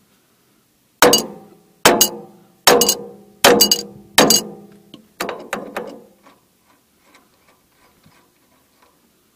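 Hammer striking steel: five hard, ringing blows a little under a second apart, then two lighter strikes and a few faint taps.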